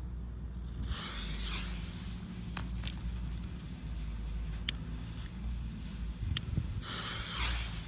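Lit fuse of a large firecracker hissing in two short sputters, about a second in and again near the end, with a few sharp ticks between, over a low steady background rumble.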